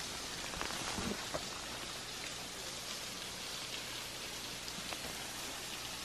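Steady hiss of falling water from a waterfall, with a few soft footsteps on the forest trail in the first second or so.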